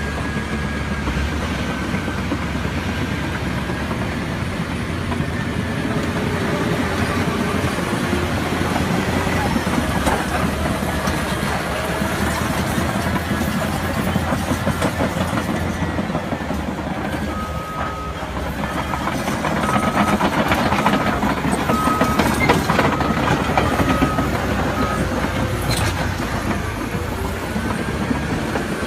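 Steady rumble and clatter of heavy machinery. Partway through, a short beep repeats about once a second for several seconds.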